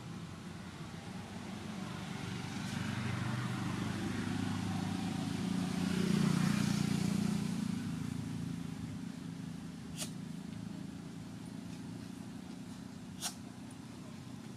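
A motor vehicle passing by: its engine and road noise swell over several seconds, loudest about six seconds in, then fade away. Two sharp clicks sound near the end.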